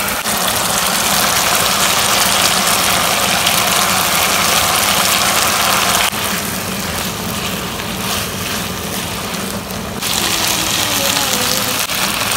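Food sizzling in a hot frying pan as it is stir-fried, with a steady low hum underneath. The sizzle drops abruptly about six seconds in and comes back about four seconds later.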